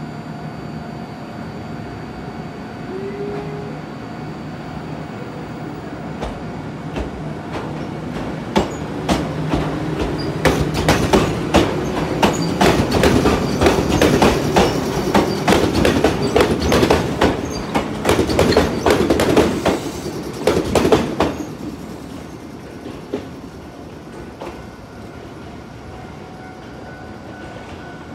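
Iyotetsu 610 series four-car electric train pulling out and passing close by: a steady hum at first, then a run of wheel clicks over the rail joints and points that grows loud as the cars go by and stops abruptly about three quarters of the way through, leaving a fading rumble as the train draws away.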